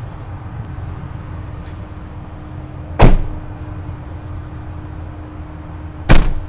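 The two rear doors of a Mercedes Sprinter van are slammed shut one after the other. There are two loud slams about three seconds apart, over a steady low hum.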